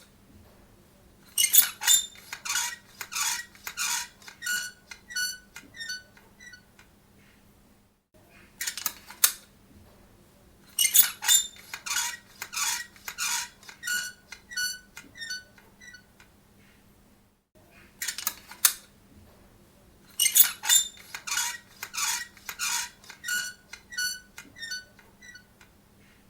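Small metal door creaking on its hinges: trains of short, high metallic squeaks that come quicker and fade away over about five seconds, heard three times with brief squeaks in between.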